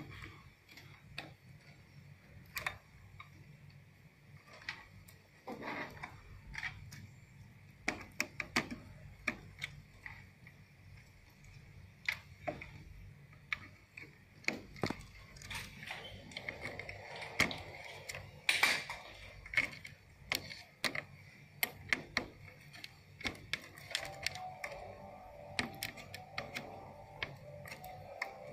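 Irregular sharp clicks and rustles of plastic wire connectors and cable harnesses being handled and plugged back onto a TV mainboard, with a louder cluster of clicks partway through.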